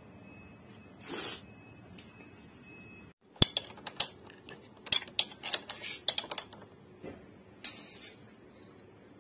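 Two short hisses of an aerosol spray, about a second in and again near the end, with a quick run of sharp metallic clicks and clinks from tools being handled between them.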